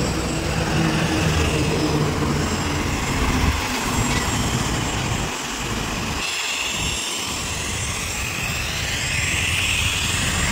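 Road traffic passing close by: vehicle engines and tyre noise in a steady roar, with a vehicle going by near the end.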